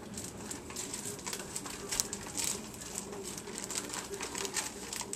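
Plastic bag of brownie mix crinkling and rustling as it is squeezed and shaken out into a glass mixing bowl, with many small irregular crackles.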